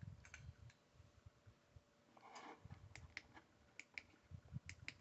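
Faint clicks of small plastic building bricks being pressed and snapped together by hand, with soft handling knocks. The clicks come in quick pairs several times in the second half.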